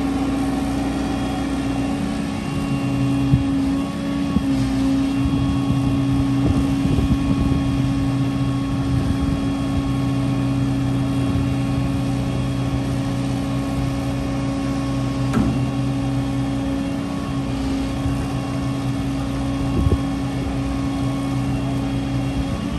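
Marine travel lift's engine running steadily as the lift drives along the slip carrying a boat in its slings. A deeper drone joins about three seconds in and drops away after about seventeen seconds, with a few sharp knocks.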